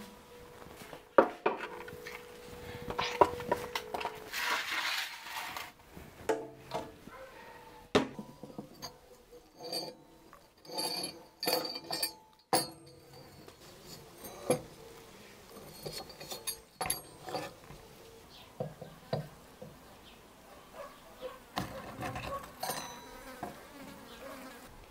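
Scattered metal clinks and knocks as a raw whole chicken is pushed onto a rotisserie spit and its metal prongs are fitted, with an insect buzzing around near the microphone.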